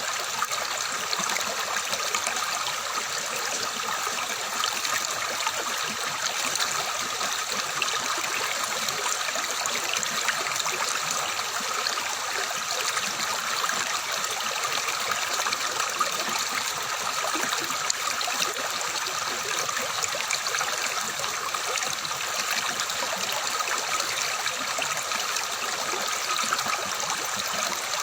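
Flowing stream water, babbling and splashing steadily with an even rushing hiss.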